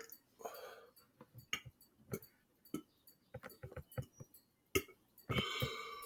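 Faint mouth clicks and gulps from a man swallowing air to build up a big burp, with a short burp about five seconds in.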